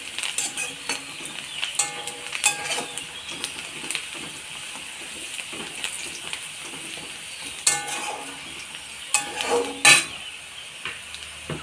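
Chopped onion and garlic with whole spices sizzling steadily in hot mustard oil in a kadai, while a spatula stirs them with repeated clicks and scrapes against the pan, the loudest scrapes about eight and ten seconds in.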